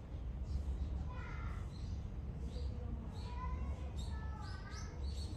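Outdoor ambience: a steady low rumble with scattered faint, short, high-pitched calls.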